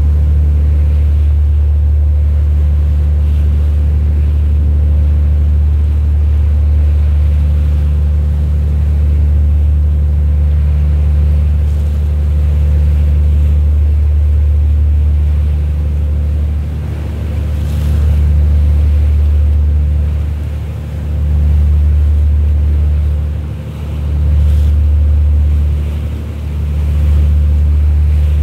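Boat engine running with a steady low drone close to the microphone, over wind and water noise. From about halfway through, the drone dips and swells every few seconds.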